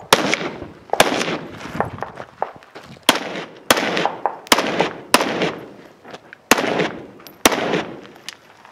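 AR-style rifle firing about eight shots at uneven intervals of half a second to two seconds. Each crack is followed by a short echo.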